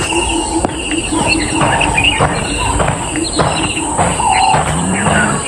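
Savanna ambience: insects trilling steadily at a high pitch, crickets chirping in an even pulsing rhythm, and short bird chirps scattered through.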